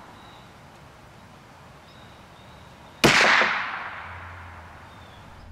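A single .22 LR rifle shot from a Ruger 10/22 firing a CCI Mini-Mag 40-grain round-nose, about three seconds in. It is heard from near the target 20 yards downrange, as one sharp crack whose echo dies away over about two seconds.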